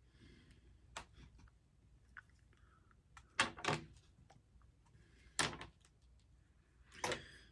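Hands handling fishing line and tackle on a work surface while a knot is tied: a handful of separate light clicks and knocks, a close pair about three and a half seconds in, with faint rustling between.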